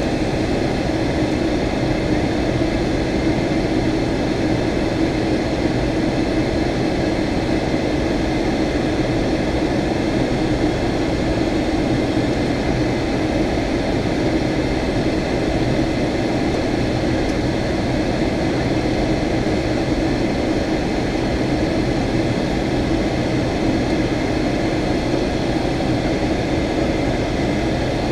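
Steady cabin drone inside a Boeing 757-200 in descent: engine and airflow noise with a strong low hum and faint steady whines above it, unchanging in level.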